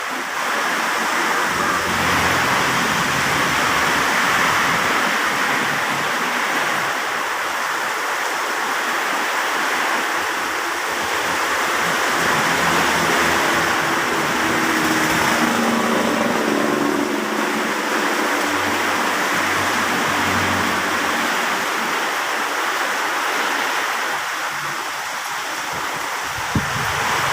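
Steady rush of heavy rain pouring down. A faint low hum comes and goes about halfway through, and there is one sharp click near the end.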